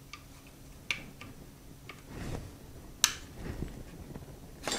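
Scattered small clicks and taps of metal pistol parts: a pin being pushed through a Glock 20 frame while the slide release is worked into place, with one sharper click about three seconds in.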